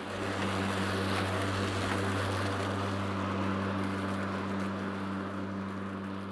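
Stiga Twinclip 950 SQ AE cordless mower running steadily, its electric motor spinning the double-layered twin-clip blade as it cuts and mulches grass, a steady hum at constant pitch.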